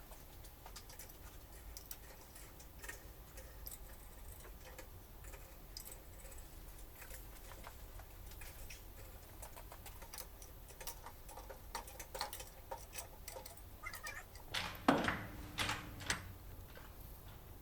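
Scattered light metallic clicks and ticks from refitting a rear wheel by hand, with a louder cluster of knocks about fifteen seconds in.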